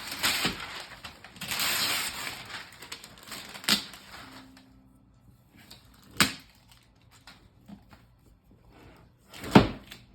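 Crinkling, tearing wrapping and packaging as a present, a crayon box, is unwrapped. Then three sharp knocks or clicks a few seconds apart, the last the loudest, as the box is handled.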